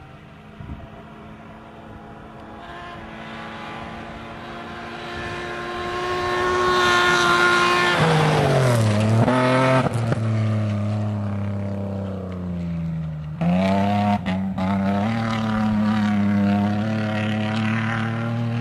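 Rally car engine at steady revs, growing louder as the car approaches, then falling sharply in pitch as it passes about eight seconds in. After an abrupt change a little past halfway, another rally car engine runs with slowly rising pitch.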